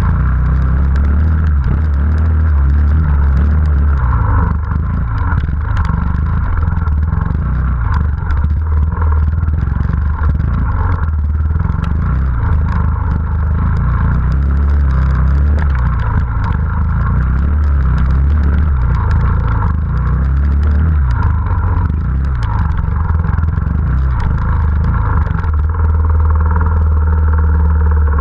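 Off-road motorcycle engine running at low, steady revs, heard from on the bike, with scattered knocks and rattles as it crosses loose rock.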